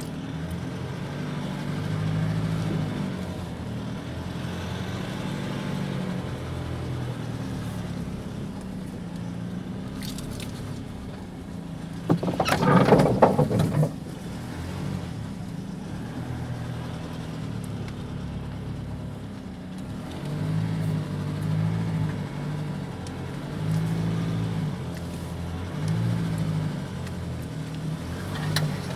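Nissan Navara D40's 2.5 dCi four-cylinder turbodiesel running under load while driving over rough off-road ground in four-wheel drive. About twelve seconds in there is a loud rough noise lasting about two seconds, and in the second half the engine note rises and falls several times as the throttle is worked.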